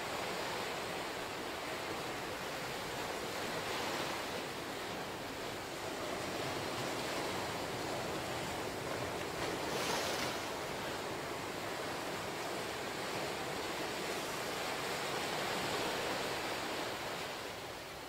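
Ocean waves breaking and washing up a small sand beach and around lava rocks: a steady hiss of surf that swells as each wave comes in, loudest about ten seconds in.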